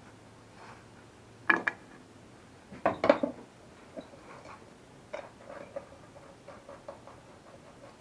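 Metal parts of a lawnmower blade being refitted: a few sharp metal clanks and clinks, then a run of light, irregular ticks from about halfway through as the blade bolt is run down with a wrench.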